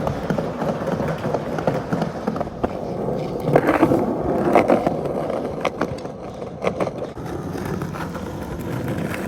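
Skateboard rolling, a steady rumble from the wheels with repeated sharp clicks and knocks.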